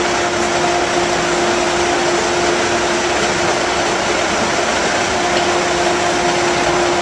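Steady mechanical whir with a constant low hum, from machinery running without change.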